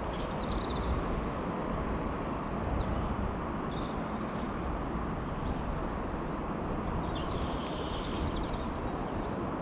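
Steady rushing of a heavily flooded river, with a few faint bird chirps.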